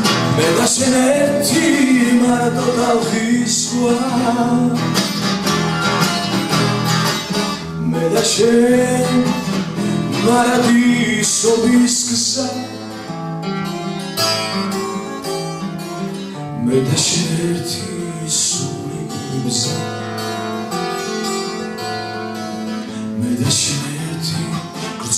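A man singing a song in Georgian live into a microphone, accompanying himself by strumming a steel-string acoustic guitar. The music gets somewhat quieter about halfway through.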